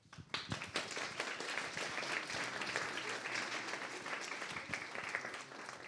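Audience applauding the close of a talk: many hands clapping together, dying away near the end.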